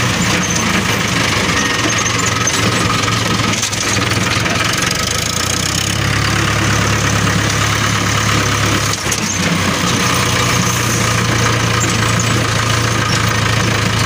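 Mahindra 475 tractor's diesel engine running steadily as the tractor is driven slowly along a dirt track, heard close up from on the tractor. The engine note rises slightly about six seconds in.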